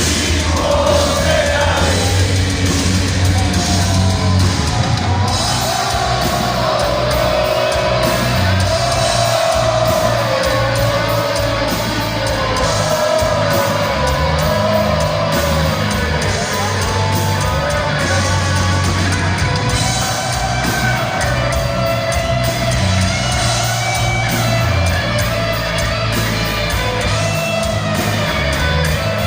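Heavy metal band playing live in a large hall: a lead singer holds a wavering melody over distorted electric guitars, bass and drums.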